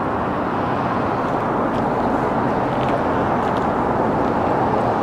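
Steady rushing noise of road traffic, even and unbroken.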